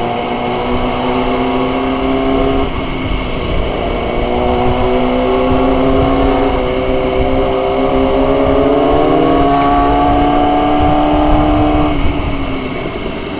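Motorcycle engine running under way, its pitch holding, dropping about three seconds in, then climbing slowly through the middle and easing off near the end, over a steady low rumble of wind and road.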